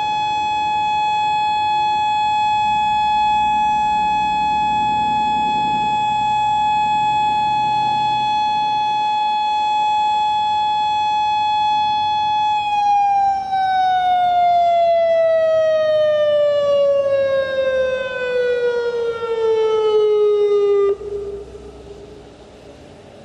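Federal Signal Modulator 4016 outdoor warning siren sounding a steady tone during a siren test. About twelve seconds in, the pitch begins a slow, even fall, and the sound cuts off abruptly near the end.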